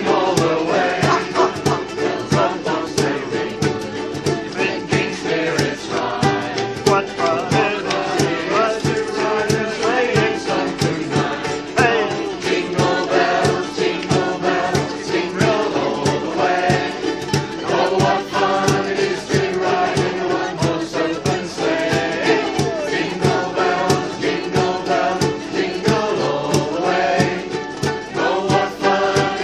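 Ukulele ensemble strumming a steady rhythm while the players sing together.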